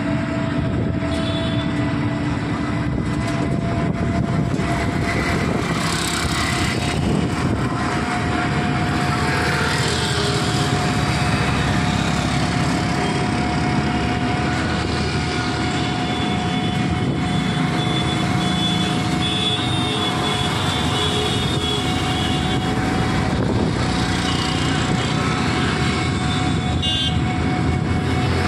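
Road and engine noise from riding in a moving vehicle through city traffic, steady throughout, with a few brief horn toots from traffic, around a third of the way in and again near the end.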